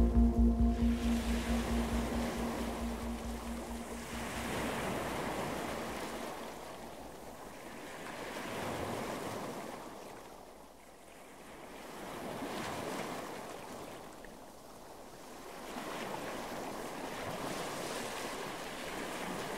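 Ocean surf washing in and drawing back in slow swells, about one every four seconds, while a held music chord fades out over the first few seconds.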